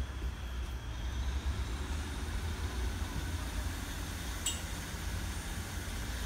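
Class 150 Sprinter diesel multiple unit's underfloor diesel engines running as the train pulls away, heard as a steady low rumble. A brief sharp click comes about four and a half seconds in.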